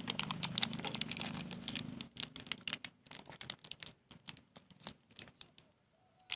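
Handling noise from a chicken being held and dosed: a dense run of quick clicks and rustling for about the first two seconds, then scattered taps.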